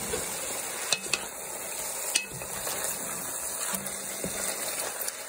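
Rabbit pieces sizzling as they sauté in olive oil in a pot. A wooden spoon stirs them, with a few sharp knocks about a second in and again near two seconds.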